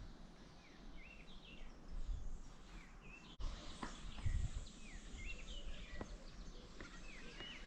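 Small birds chirping: a scatter of short, quick up-and-down chirps, faint, over a low rumble with a few soft thumps.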